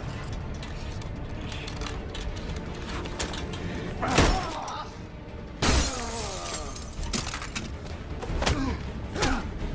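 Film fight sound effects over the low rumble of a moving train: heavy blows and thuds with grunts, and a loud crash of breaking glass about halfway through.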